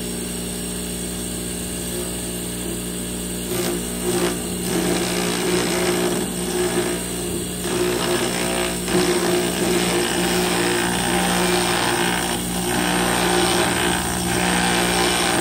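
Electric bench grinder running steadily while a steel lathe tool bit is ground against its wheel. From about three and a half seconds in, the grinding noise comes and goes as the bit is fed in, louder toward the end.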